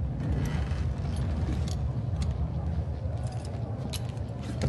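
A low steady rumble with scattered small clicks and metallic ticks over it: background sound effects of a scene, with no speech.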